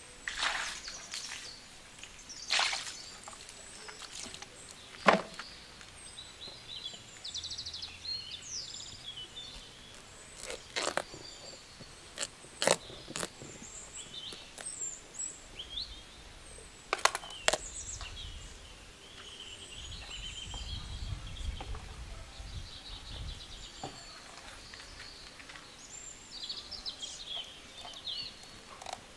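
Birds chirping throughout, with about a dozen sharp knocks and clicks scattered through it as a knife cuts into pumpkins on a wooden stump.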